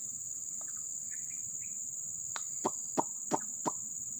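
Steady high-pitched drone of forest insects. About halfway through comes a quick run of five short, sharp chirps, each sweeping sharply downward in pitch.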